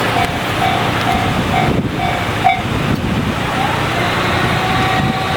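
Japanese railway level-crossing alarm (JR standard electronic crossing bell) ringing about twice a second, then stopping about two and a half seconds in as the crossing clears after the train has passed. A steady vehicle noise continues underneath.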